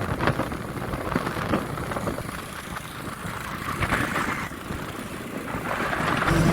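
Motor vehicle or machinery engines running with an uneven rumble. The noise swells about four seconds in and again near the end.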